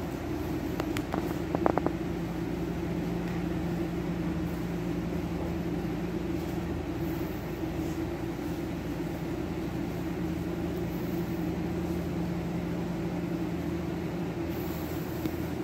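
Steady low machine hum, with a few light clicks about one to two seconds in.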